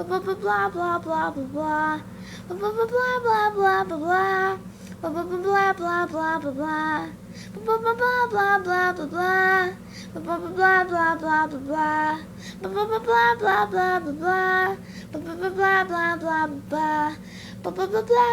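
A child singing the same short, high-pitched phrase over and over, each phrase about two seconds long with a brief break before the next, over a steady low hum.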